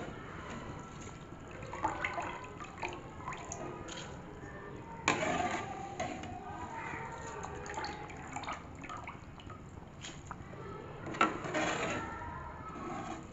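Pot of water and vegetables for pulao bubbling on the boil, with a sharp knock about five seconds in and a louder splashing rush around eleven seconds in as washed rice is tipped into the liquid.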